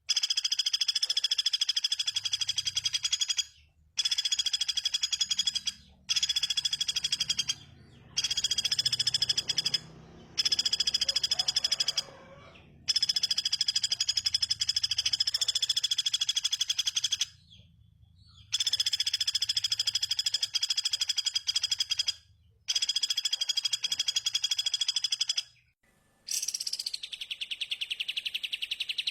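A small bird's rapid, high-pitched trill, repeated in phrases of a few seconds with short pauses. Near the end it changes to a different call of notes that rise and fall in pitch.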